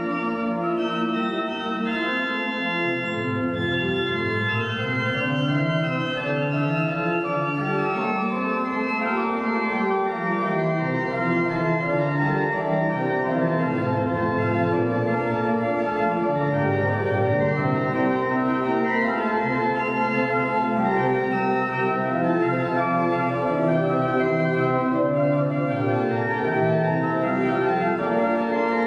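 Church pipe organ playing the recessional: sustained full chords changing slowly, with a deep bass line that comes in about three seconds in and moves down and up beneath them.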